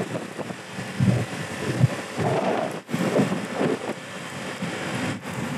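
Wind buffeting the microphone of a 50cc motorbike in motion, in uneven gusty swells over road noise, cutting out briefly a couple of times.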